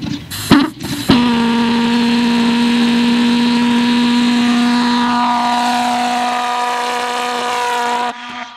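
Small pulse jet engine on an RC plane coughing with a few sharp irregular pops as it is started. About a second in it catches and runs with a steady, loud buzz, which cuts off suddenly near the end.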